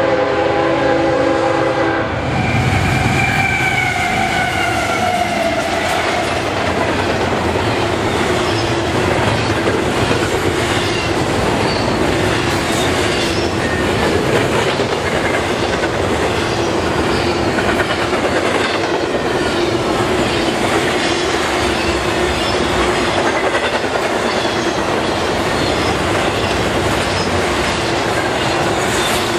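A GE freight locomotive's horn sounds a chord for about the first two seconds, its pitch falling away after it. A double-stack intermodal freight train then rolls steadily past, its wheels clattering over the rail joints with a steady tone running under the clatter.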